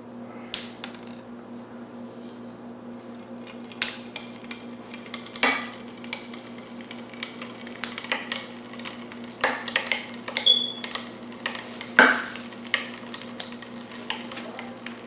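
Mr. Bubble Magic Bath Crackles crystals crackling and popping in a cup of water. A dense run of tiny pops starts about three and a half seconds in and goes on, with a few louder clicks among it.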